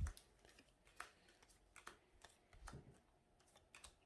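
Faint scattered clicks and rustles of trading cards being handled and flipped through, with a soft low thump right at the start.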